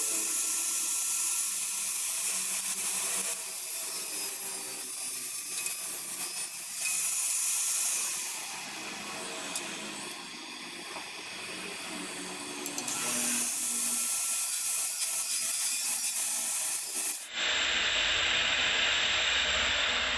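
Gas blowtorch flame hissing steadily as it heats a small can crucible of scrap aluminium to melt it, the hiss easing for a few seconds midway.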